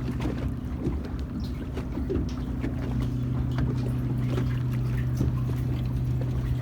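A boat's engine runs with a steady low hum, under scattered small clicks and knocks.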